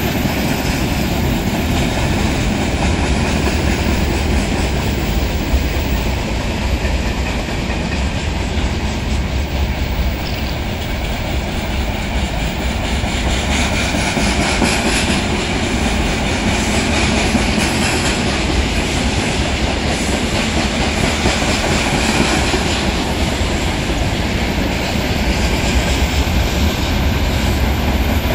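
Freight train wagons rolling past: a steady loud rumble of steel wheels on the rails, with the clickety-clack of wheels over the rail joints.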